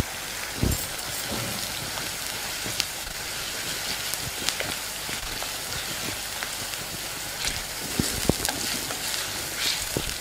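Onions, green chillies and curry leaves frying in hot oil in a clay pot: a steady crackling sizzle as ginger-garlic paste is stirred in. The wooden spatula scrapes and knocks against the pot, with a dull knock about a second in.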